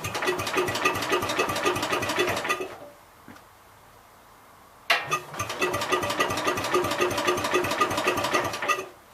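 1966 Gravely C10 engine cranked over on the starter in two bursts, about three seconds and then about four seconds, turning over in an even, rapid rhythm without firing. It does not catch because it has no spark.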